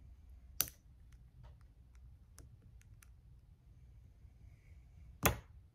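Sharp clicks of fine-tipped circlip pliers working the piston-pin circlip on a nitro engine piston: one loud click about half a second in, a few faint ticks over the next couple of seconds, and a second loud click near the end.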